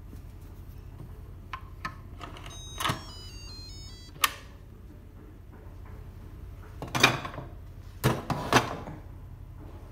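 Instant Pot electric pressure cooker: a few small clicks, then a short electronic chime stepping down in pitch. A sharp click follows as the lid is twisted open, and then loud clunks and a clatter as the lid is lifted off and set down.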